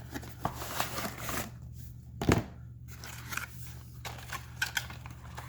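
Cardboard packaging of a boxed computer mouse being opened and handled: scraping, rustling and small clicks, with one louder knock about two seconds in.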